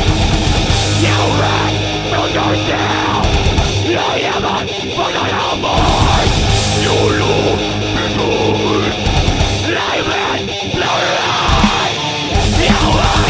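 Heavy metal band playing: distorted guitars, bass and drums, loud and dense, with the low end dropping out briefly a few times.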